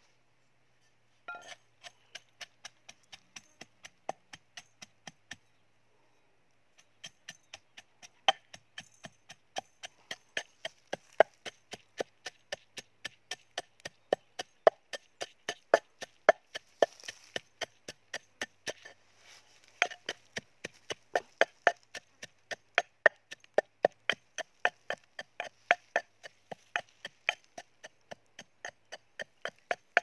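Wooden pestle pounding red chilies and salt in a metal bowl, about three blows a second, with a short pause about six seconds in.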